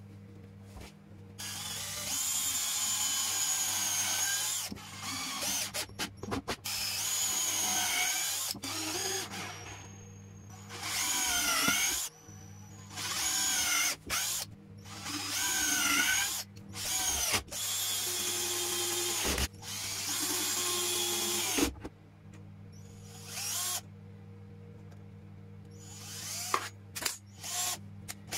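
Parkside cordless drill running in repeated bursts of a few seconds as it drills into the wooden side of a box. Its whine dips in pitch under load and recovers within several of the bursts.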